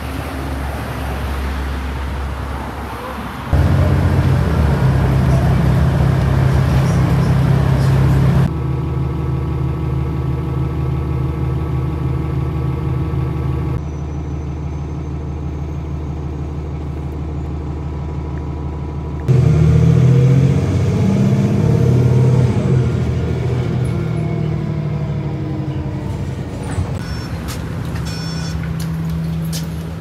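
Road traffic, then a city bus running, heard from inside its cabin: a steady low engine hum that changes abruptly several times as short clips follow one another.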